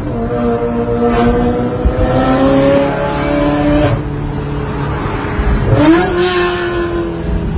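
A car engine accelerating, its pitch climbing steadily, dropping about four seconds in at a gear change, then sweeping sharply up again about six seconds in, echoing inside a tunnel.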